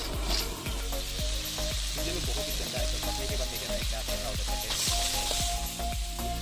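Crab shells and pieces sizzling in hot oil in a wok while a metal ladle stirs them. The sizzle swells briefly about five seconds in.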